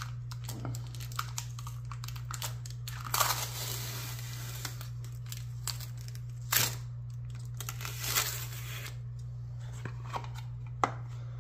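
Hands handling lock-pick packaging and a clear plastic case: a few short plastic crinkles and rustles, with a sharp click near the end, over a steady low hum.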